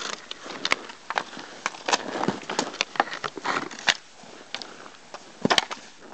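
Hockey sticks and a puck knocking on ice: irregular sharp clacks and taps with scraping between them, the loudest a quick pair of cracks near the end.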